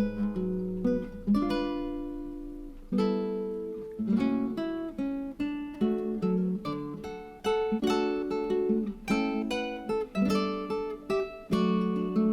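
Background music: acoustic guitar picking plucked notes and strummed chords, each note ringing and fading.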